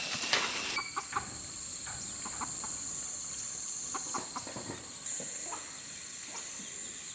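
Chickens clucking in short, scattered calls over a steady high-pitched insect drone.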